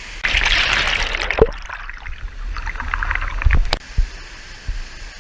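Rushing, gurgling water of a fast stream by the falls, with a low rumble under it and a couple of sharp knocks.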